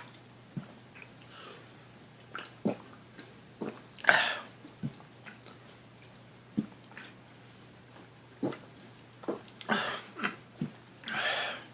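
A person chugging a drink: scattered wet gulping clicks, with a few short, breathy gasps in between.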